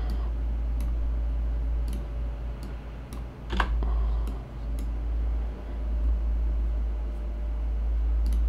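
A few scattered sharp clicks from computer use while a move is made in an online chess game, the loudest a little under halfway through, over a steady low hum.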